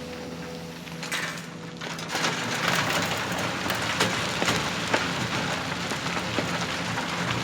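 Steady hum of a small motor, joined about two seconds in by a louder, dense crackling patter with many small clicks.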